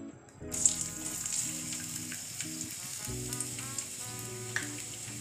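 Chopped onions dropped into hot oil in an aluminium kadai, bursting into a sizzle about half a second in and then frying steadily.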